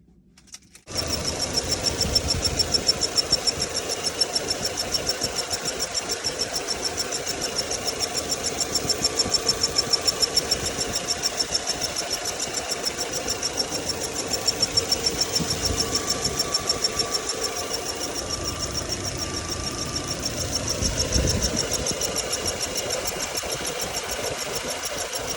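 Volkswagen Passat B5 engine idling cold, with a high-pitched, rapidly pulsing squeal from under the bonnet over it, starting about a second in. The owner likens it to a slipping accessory drive belt.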